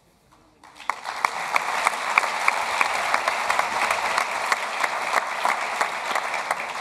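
Large audience applauding, breaking out about a second in and holding steady.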